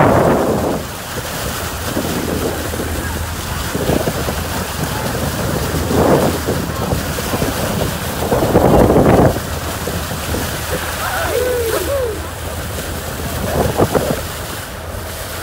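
A boat running under way, its motor a steady low hum beneath water rushing and splashing at the bow, with wind buffeting the microphone. There are louder surges of splashing and wind at the start, about six seconds in, and again around eight to nine seconds.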